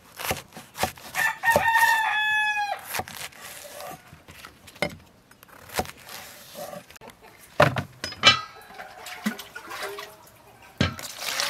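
Kitchen knife cutting through a banana flower heart onto a wooden chopping board, a sharp knock with each stroke. A rooster crows once about a second in, a shorter call follows later, and water starts pouring into a plastic basin near the end.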